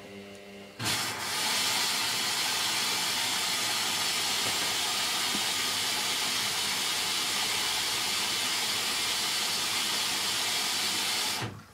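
Hoover DYN9144D3X washing machine's water inlet valve opening, a steady hiss of water rushing in, starting abruptly about a second in and cutting off about ten seconds later.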